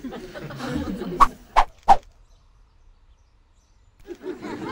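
Three sharp, loud cartoon sound-effect hits in quick succession, about a third of a second apart, after a second of murmuring sound. A voice-like sound starts near the end.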